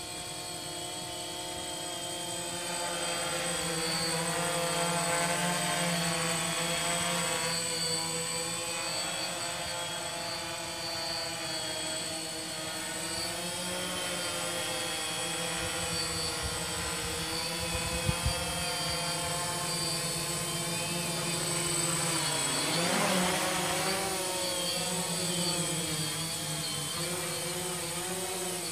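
Quadcopter drone's rotors buzzing in flight: a steady multi-tone whine whose pitch wavers as it hovers and manoeuvres, dipping and rising again about 23 seconds in. Two brief knocks come about 18 seconds in.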